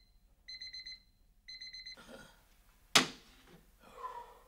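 Bedside alarm clock beeping in quick pulsed bursts, about one burst a second, then stopping about two seconds in. A single sharp click follows about a second later, then a brief groan.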